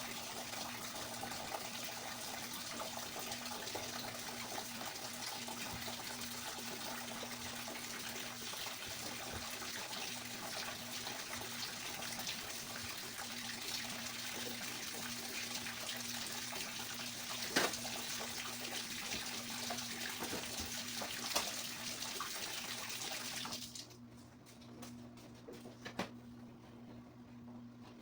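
Water running steadily from a tap, with a few sharp knocks, until it cuts off suddenly near the end.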